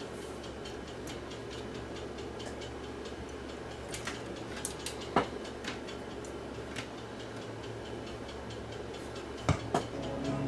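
Scattered small clicks and taps of speaker wires and their connectors being handled and hooked up, two of them louder near the end, over a steady low hum.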